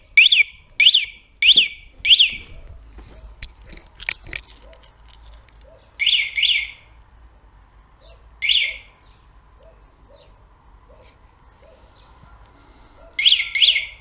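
Motorcycle alarm siren giving short, sharp chirps. Five come in quick succession about half a second apart, then a pair, a single one, and another pair near the end: warning chirps from an alarm whose shock sensor is quite sensitive.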